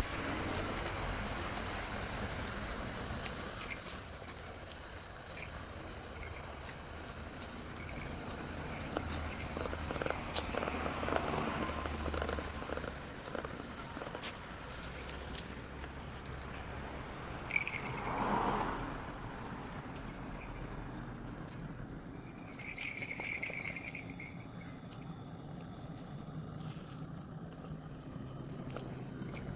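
Cicada buzzing: a loud, steady, high-pitched drone that runs on without a break.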